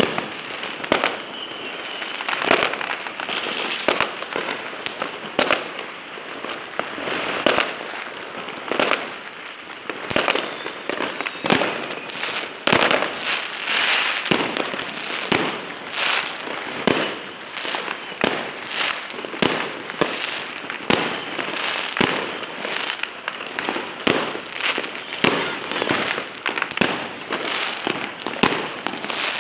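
Fireworks and firecrackers going off without pause: a steady crackle with frequent sharp bangs at irregular intervals.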